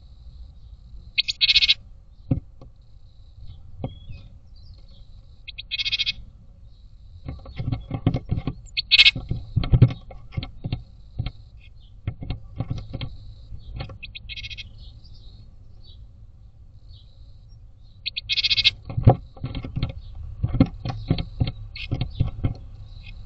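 A tit at a wooden nest box's entrance hole, heard from inside the box: about five short, buzzy scolding calls, spread out, among clusters of scratching clicks and hollow knocks as its claws and bill work at the wood of the hole.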